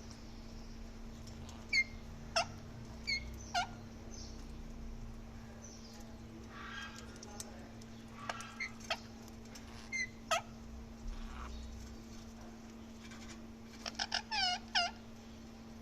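Parrots giving short, sharp calls that drop in pitch, one at a time every second or so, then a quick run of five or six calls near the end, over a steady low hum.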